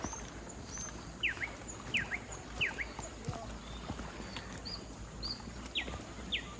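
Forest birds calling: one bird gives short, sharp downward-sweeping whistled notes, several in quick pairs, while fainter high chirps come from other birds.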